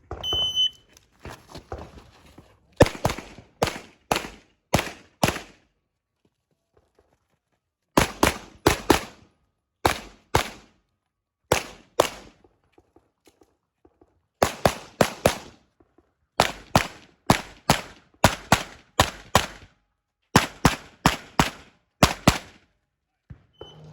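Shot-timer start beep about half a second in, followed by a USPSA stage of pistol fire. Shots come in rapid pairs and strings of up to about seven, with short pauses between the groups.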